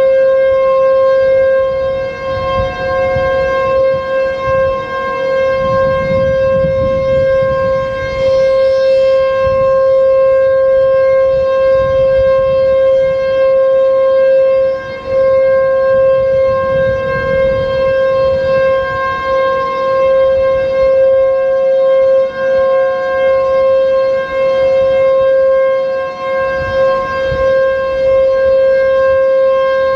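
Super-Sirex 50 HP outdoor warning siren sounding its steady alert signal: one unwavering pitch with strong overtones, echoing off surrounding buildings, its loudness dipping briefly now and then.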